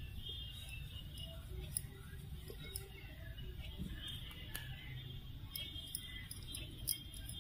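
Faint handling noise from crocheting with a hook and acrylic-type yarn: soft rustles of yarn being pulled through and a few sharp, scattered clicks, over a low steady room rumble.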